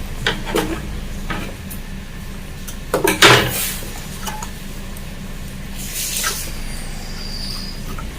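A few sharp knocks and clinks of objects being handled, the loudest cluster about three seconds in and another about six seconds in, over a steady low hum.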